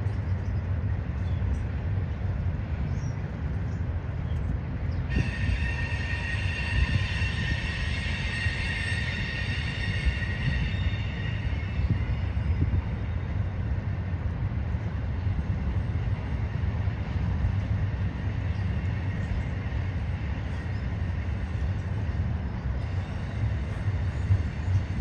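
Double-stack intermodal freight train rolling past with a steady low rumble of its cars. About five seconds in a high-pitched wheel squeal sets in, and it fades out about halfway through.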